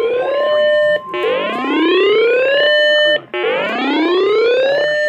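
Weather radio alert siren: a loud electronic whoop that rises, holds briefly at the top and cuts off, repeated three times about two seconds apart. During the first second it overlaps a steady single tone, the 1050 Hz NOAA Weather Radio warning alarm tone.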